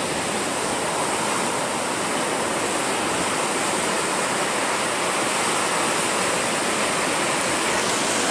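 Steady, unbroken rush of heavy storm-driven ocean surf.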